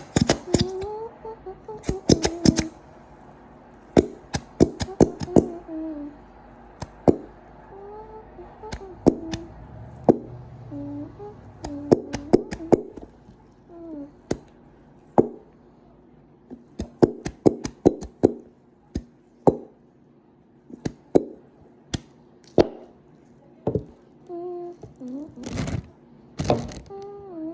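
Hands squishing and pulling sticky homemade slime, making a run of sharp wet clicks and pops, sometimes several in quick succession, with soft humming underneath.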